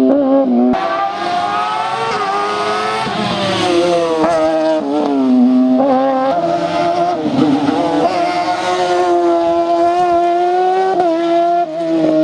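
Hillclimb race car engine running at high revs under hard acceleration. Its note holds high and steps up or down several times as the driver changes gear.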